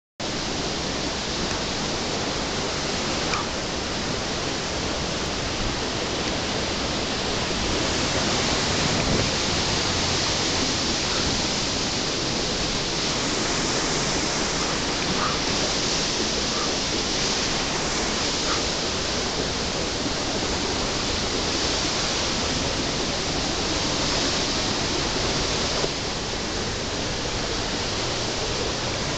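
A waterfall rushing: steady, even noise of falling water.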